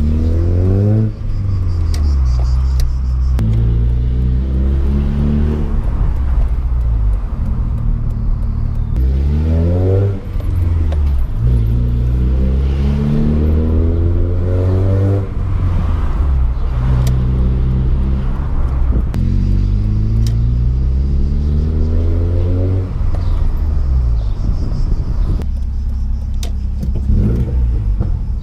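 Opel car engine heard from inside the cabin while driving: the engine note climbs as the car accelerates and falls back at each gear change, several times over, over a steady rumble of tyres and road.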